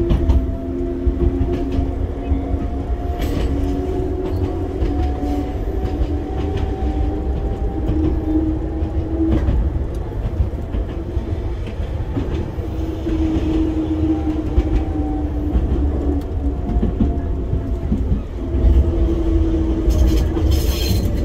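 Enoshima Electric Railway 300 series electric train running on its line, heard from on board: a steady low rumble with wheels clicking over rail joints. A motor whine slowly rises in pitch, then falls, as the train picks up speed and eases off. A brief high-pitched sound comes near the end as the train enters a curve.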